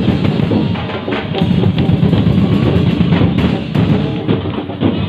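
Loud festival street-dance drumming: bass drums and snare drums playing a continuous driving beat.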